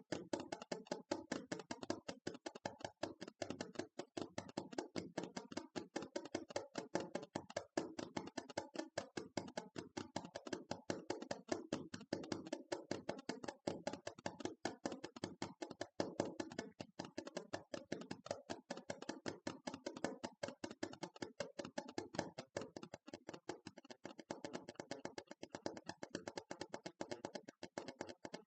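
ASMR tapping: rapid, continuous light taps, several a second, with no pause.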